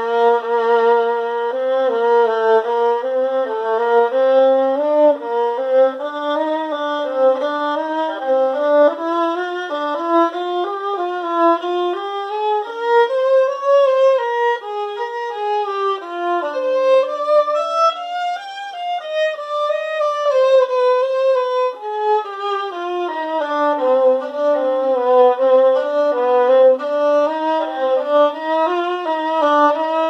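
Solo violin, bowed, playing a slow melody with vibrato on the held notes. The tune climbs in pitch through the middle, holds one long note, then comes back down near the end.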